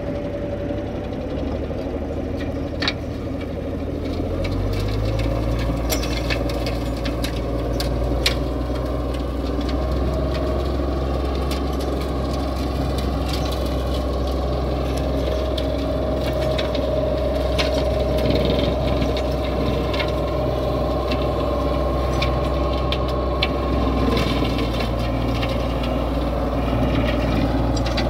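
IHC 1055 tractor's diesel engine running steadily. About four to five seconds in, the engine note deepens and grows louder. A steady whine and scattered clicks and rattles sit over it.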